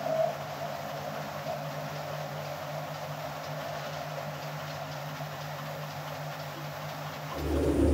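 Manugraph Newsline 45 web offset newspaper press running, a steady mechanical clatter over a constant hum as the paper web feeds through the rollers. Near the end it grows louder, with a deeper hum coming in.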